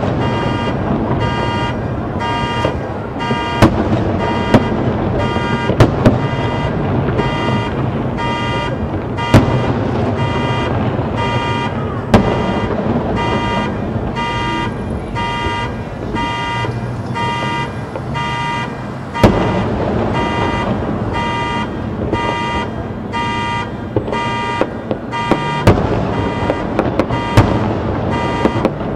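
A car alarm beeping in a steady on-off pattern, about two beeps a second, over the booms of aerial fireworks bursting every few seconds. The bursts come more often near the end.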